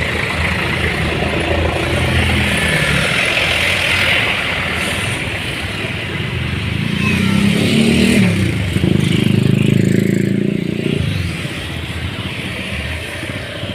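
Road vehicles running: a steady engine and road noise, with one engine growing louder about seven seconds in and dropping back about eleven seconds in.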